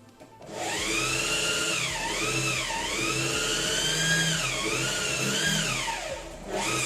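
Singer 4432 Heavy Duty sewing machine motor running the bobbin winder: a loud whine that starts about half a second in and rises and falls in speed, dipping several times. It stops briefly near the end, then starts again.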